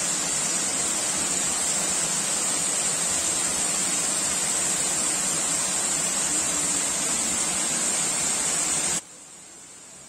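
A waterfall's water rushing steadily down over rocks, close by. The rush cuts off suddenly about nine seconds in, leaving a much quieter hiss.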